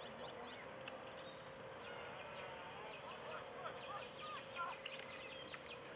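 Faint outdoor ambience: many short, high chirps scattered throughout, with a few distant voices over a steady low hum.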